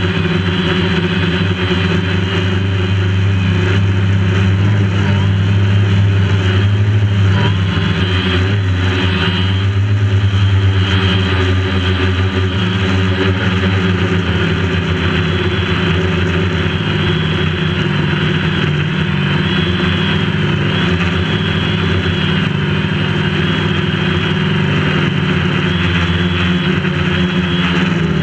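DJI Phantom quadcopter's motors and propellers buzzing steadily in flight, heard close up from the camera mounted on the drone, with small shifts in pitch as it manoeuvres.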